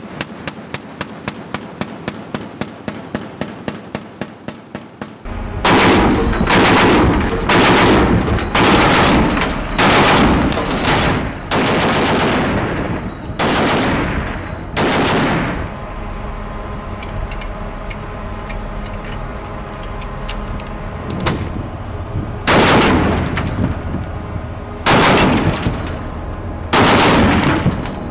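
Shipboard heavy machine gun, an M2 Browning .50 calibre, firing. It starts as a string of fainter, evenly spaced shots about four a second, then about five seconds in turns to loud bursts of rapid fire about a second long, one after another. There is a quieter stretch of a few seconds past the middle.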